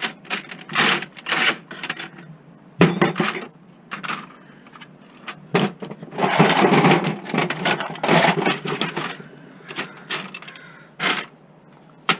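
Small metal screwdriver bits clinking and rattling while being rummaged through and handled. Irregular sharp clicks, with two longer spells of rattling in the middle.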